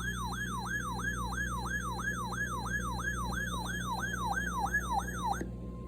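Electronic siren sounding a rapid wail: a tone that falls in pitch and jumps back up about three times a second, cutting off abruptly about five and a half seconds in. A steady single-pitch alert tone starts right after.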